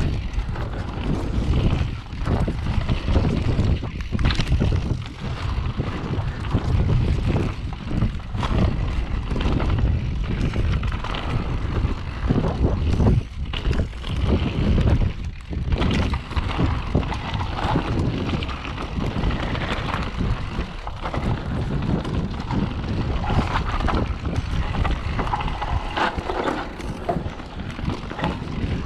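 Mountain bike ridden over a dirt trail: tyre rumble and a constant rattle of knocks as the bike goes over rough ground, with wind buffeting the microphone.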